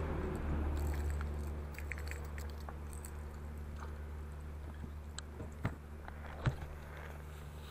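Light clicks and taps from a fishing rod and reel being handled and worked, with two sharper ticks past the middle, over a steady low hum.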